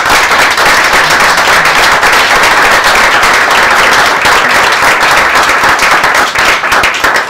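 A small audience applauding: dense, steady hand-clapping that thins out at the very end.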